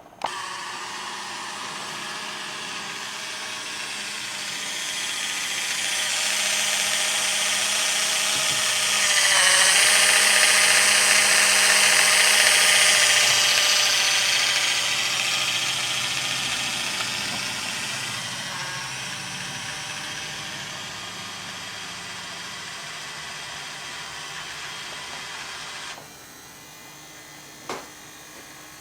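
Small electric gear motors of a fischertechnik model dredger running with a steady whir of motor and plastic gears. It starts suddenly, grows louder toward the middle, fades again and cuts off, with one short click near the end.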